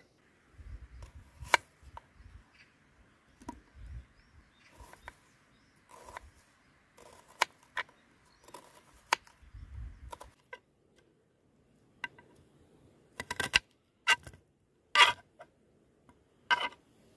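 Knife slicing through a raw onion on a wooden cutting board: irregular crisp cuts and knocks of the blade on the board, the loudest strokes coming close together near the end.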